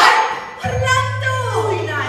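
Stage music: a loud crash right at the start, then a steady low bass note held under a voice that glides downward.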